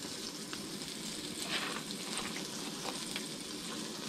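Breaded walleye frying in hot oil in a skillet on a propane camp stove: a steady sizzle dotted with small crackles and pops.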